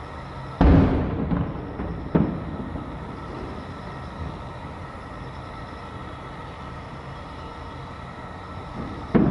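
Aerial fireworks shells bursting at a distance: a loud boom about half a second in that trails off slowly, a smaller boom just after two seconds, and another near the end, over steady background noise.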